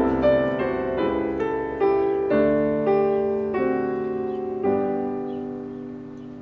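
Piano music: a slow run of notes and chords. The last chord comes a bit under five seconds in and is held while it fades away.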